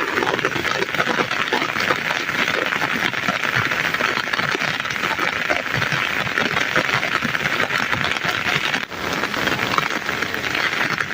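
Steady rain falling, a dense patter of countless drops on a surface, with a brief dip about nine seconds in.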